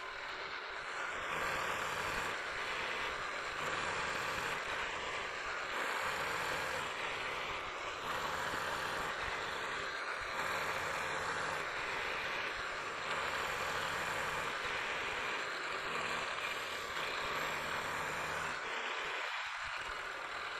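Vertical milling machine running, its end mill side-milling the flat face of a metal block: a steady cutting noise over the low hum of the motor and spindle, while the table is fed in a little at a time by hand.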